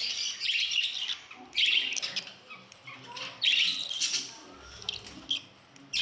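Budgerigar chicks chirping in several short, scratchy bursts while being fed beak to beak by an older spangled chick.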